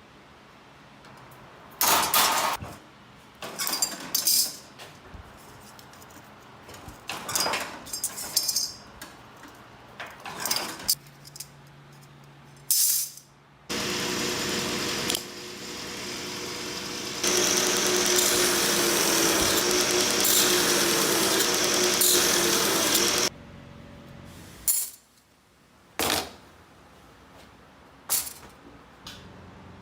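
Metalworking shop sounds: a series of short sharp clanks and scrapes, then a power tool running steadily for about ten seconds before stopping suddenly.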